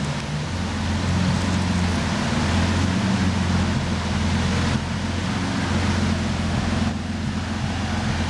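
Lamborghini engine running at a steady low idle, with no revving, over a steady hiss of rain.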